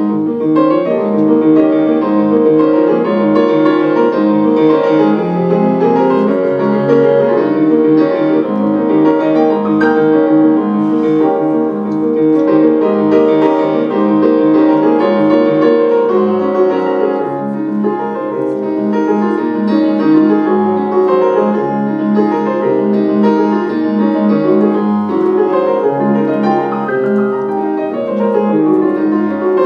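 Piano music: held chords with a melody moving above them, at a steady level.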